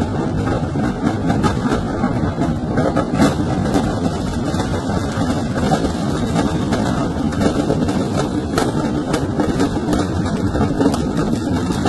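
Firecracker stock burning in a fireworks shop fire: a steady loud din shot through with frequent small crackles and pops.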